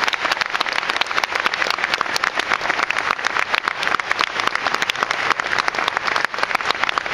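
Audience applauding, a dense, steady clapping that holds throughout.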